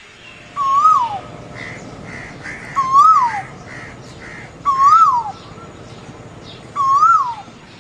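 A bird calling four times, about two seconds apart: each call is a loud clear note that rises slightly and then slides down. Fainter short chirps from other birds come in between.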